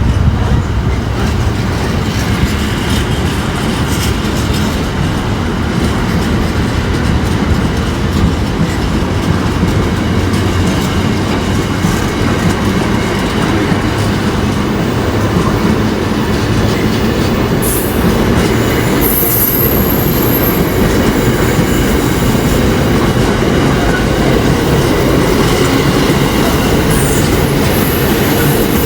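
Train running on rails: a steady, loud rumble with wheel clatter, and a brief thin high squeal a little past the middle.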